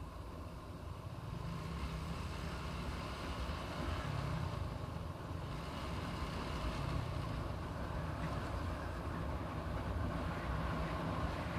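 A motorcycle ridden at a steady pace, its engine running under a continuous rumble of wind and road noise on the bike-mounted camera's microphone.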